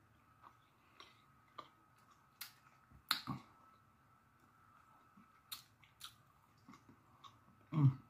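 A person chewing a mouthful of birria taco meat with the mouth closed: soft, wet mouth clicks and smacks come at irregular intervals, the loudest about three seconds in.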